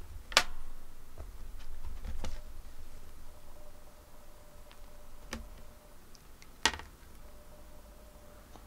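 Scattered sharp taps and knocks as a cat handles a plush fried-shrimp cat toy on a desk, the loudest just after the start and about two-thirds of the way through.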